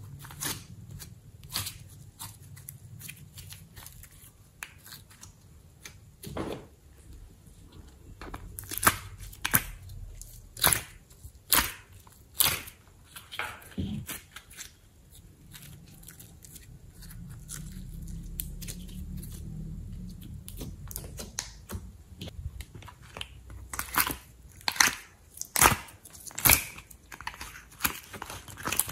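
Hands squeezing and kneading soft clay and slime, with irregular sharp pops and crackles, loudest in two clusters in the middle and near the end.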